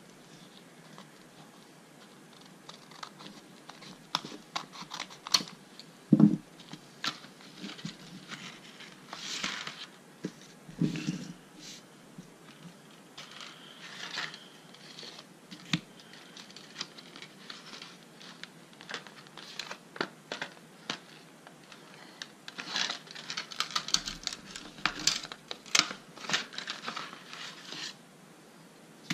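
Scissors snipping open a model kit's package, then paper and wrapping crinkling and rustling as the contents are unpacked, with light clicks and taps from thin steel parts sheets being handled. The handling is busiest near the end.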